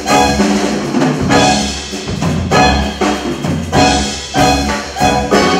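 Instrumental ensemble music in a big-band style: short, accented chords from a brass-like section, with drums and a bass line underneath.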